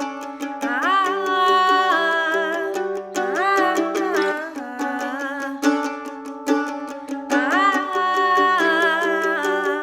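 Mandolin picked in a steady repeating pattern and layered with a looper, with wordless vocal lines gliding over it. The same phrase comes round again about seven seconds later.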